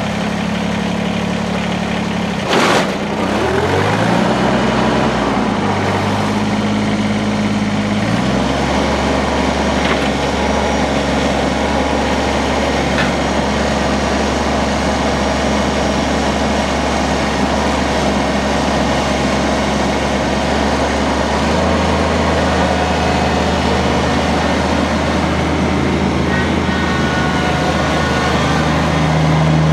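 Kubota BX25D's three-cylinder diesel engine running just after a start: a sharp knock a few seconds in, the engine speed rises and falls briefly, then it settles into a steady run.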